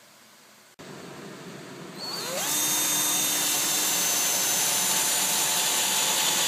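Power drill starting up, its motor rising in pitch about two seconds in, then running at a steady high whine while drilling holes in plywood floor sheets.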